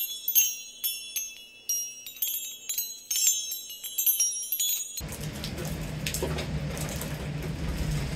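An intro jingle of bright, high tinkling chime strikes, about two a second. About five seconds in it cuts abruptly to the steady noisy wash of a thunderstorm, with a low rumble.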